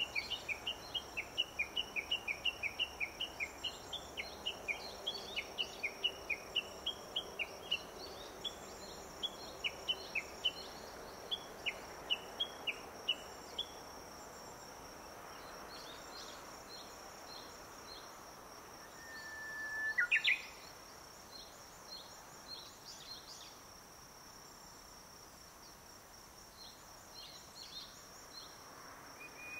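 Japanese bush warbler singing: a long run of quick, repeated chirping notes, its valley-crossing call, slows and fades out over the first half. About twenty seconds in comes one long held whistle that breaks into a quick rising-and-falling flourish, the classic 'hō-hokekyo' song, which starts again at the very end. A steady high tone runs underneath.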